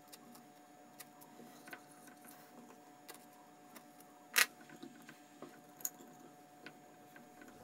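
Quiet kitchen handling: small clicks and taps as a whole lemon is slit with a knife and lemons are packed into a glass jar, with one sharp knock a little over four seconds in and a smaller one near six seconds. A faint steady hum runs underneath.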